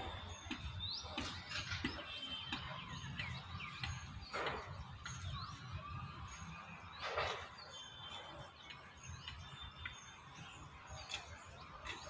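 Several birds chirping and calling, short repeated notes all through, with two louder, rougher calls about four and seven seconds in. A steady low rumble runs underneath.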